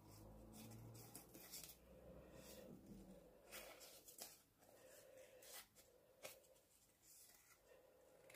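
Several faint, irregular snips of small craft scissors cutting through vellum paper.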